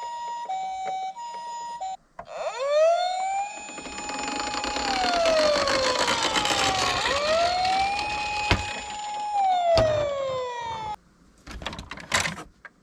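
Emergency sirens: for about two seconds a two-tone ambulance siren alternates between a high and a low note, in the Japanese 'pee-paw' style, then a wailing siren rises, holds and falls twice over a rushing noise. A few faint clicks follow near the end.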